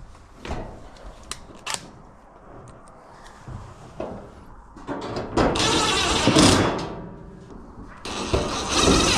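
Hands working on an electric dryer's cabinet and parts: light clicks and knocks, then two longer scraping, rustling stretches about five and eight seconds in.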